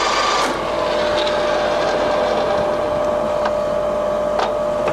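Colchester Triumph 2000 centre lathe running with its spindle at 470 rpm, a steady whine over an even mechanical hum, with two faint ticks in the second half.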